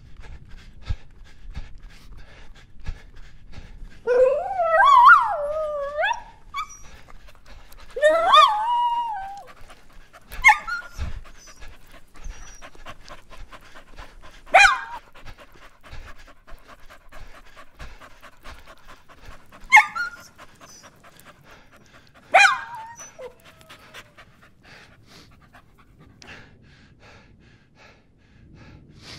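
A dog giving two long wavering cries, then four single barks spaced a few seconds apart.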